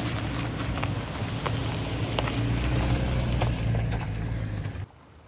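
A vehicle engine running steadily, with a hiss and scattered sharp ticks over it. It cuts off abruptly near the end to a much quieter background.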